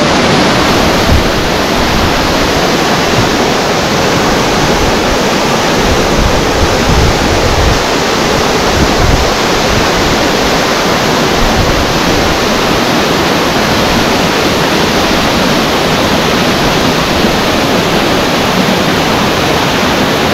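Waterfall pouring down: a loud, steady rush of falling water.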